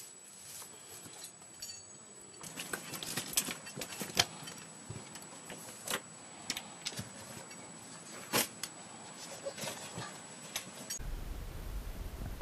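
Climbing gear clinking and handling on rock: irregular sharp clicks and knocks of metal hardware, with scuffs. A steady low noise sets in near the end.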